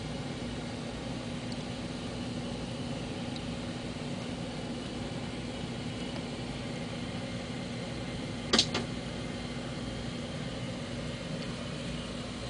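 Steady low mechanical hum with a steady low tone in it. About eight and a half seconds in, one sharp tap, followed at once by a lighter second tap.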